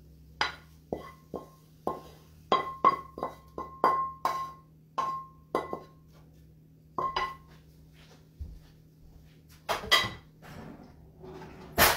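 A wooden spoon knocking and scraping against a metal frying pan, the pan ringing briefly after each hit. There are about a dozen irregular taps in the first six seconds, then a few scattered knocks and one louder knock near the end.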